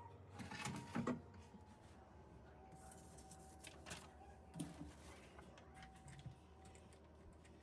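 A few light clicks and knocks of objects being handled, the loudest about a second in, over faint room tone.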